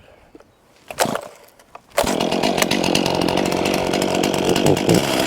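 A chainsaw starts about two seconds in and then runs steadily, after a few short knocks.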